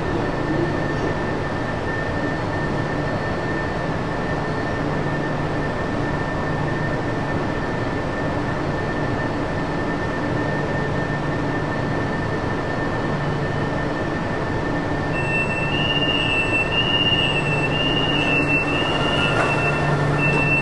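Driverless metro train standing still in a tunnel: the steady hum of its onboard equipment, with a constant high whine over it. About three-quarters of the way in, an electronic beep starts repeating, about one a second.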